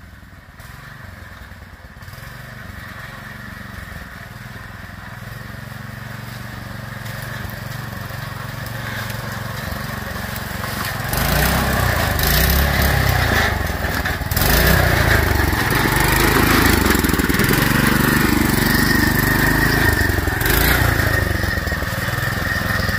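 A lawn-tractor go-kart's 212cc single-cylinder engine running as the kart drives closer over a rough trail, getting steadily louder. From about halfway on, the revs rise and fall repeatedly.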